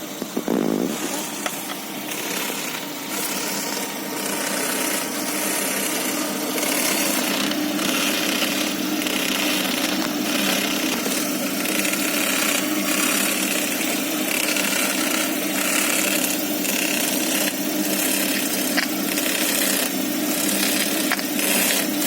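A small motor or power tool running steadily and loudly, with a rough, uneven noise over it that swells and drops every second or so.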